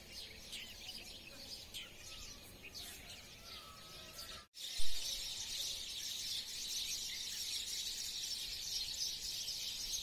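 Small birds chirping in scattered short calls at dawn. About halfway through, a sharp click comes, and after it a dense, continuous chorus of many birds chattering.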